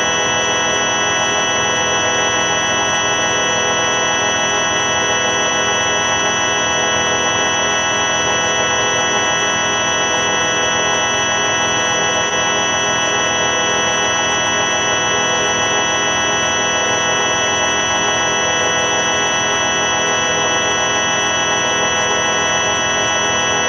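The 4ormulator V5 sound effect played at the wrong pitch: a dense electronic drone of many steady, organ-like tones stacked together, held unchanged without a break.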